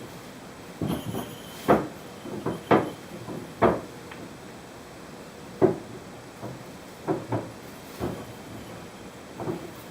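A series of irregular short knocks and thumps, about a dozen in all and unevenly spaced, the loudest a few seconds in.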